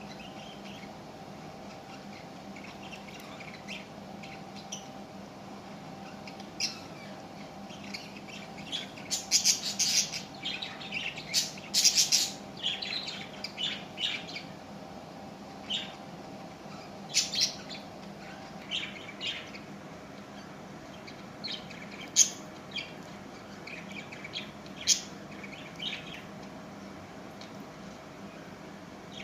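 Pet parrot chirping and squawking in short, sharp calls, coming thick and fast about a third of the way in, then in scattered single calls.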